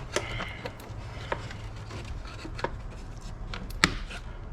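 Scattered clicks and knocks of plastic engine-bay containers being popped loose and handled, the sharpest knock about four seconds in, over a low steady hum.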